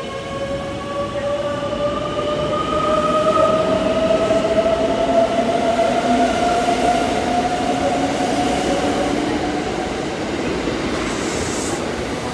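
Kintetsu 23000 series Ise-Shima Liner electric express pulling away and accelerating: the traction motors' whine rises steadily in pitch over the running noise of the wheels, loudest a few seconds in, then easing as the train moves off. A brief hiss comes near the end.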